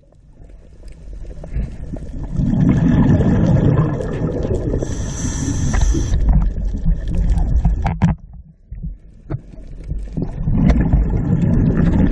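Muffled underwater rumble picked up through a camera's waterproof housing, building over the first couple of seconds, with a short high hiss in the middle, dropping away around eight seconds and swelling again near the end.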